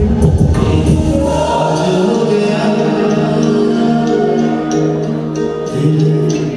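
A male singer singing into a handheld microphone over backing music, holding long notes.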